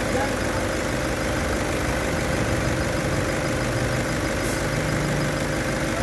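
Nissan Patrol turbo-diesel engine idling steadily with the bonnet open, with a brief faint hiss about four and a half seconds in.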